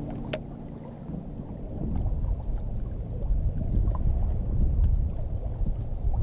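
Wind buffeting the microphone outdoors: an irregular low rumble that grows louder after about two seconds, with a single sharp click near the start.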